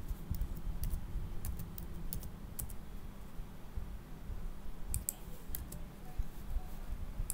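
Computer keyboard keystrokes: quick runs of key clicks over the first few seconds, as lengths are typed in and Enter pressed, then a few separate clicks about five seconds in and again near the end.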